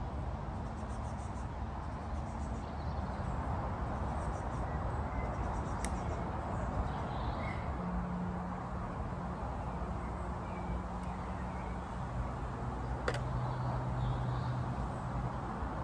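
Woodland ambience: a steady rushing background with a faint low hum and faint, scattered high bird calls. Two sharp clicks stand out, one about six seconds in and one near the end.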